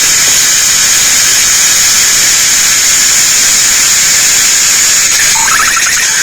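Cicadas singing in a loud, steady, high-pitched drone. About five seconds in, a second, lower call begins: a short tone followed by a rapid pulsing trill.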